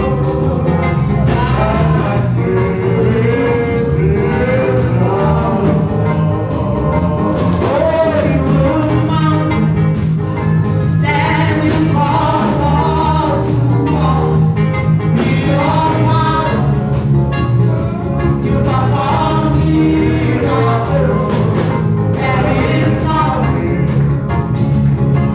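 Gospel music with singing over bass and drums.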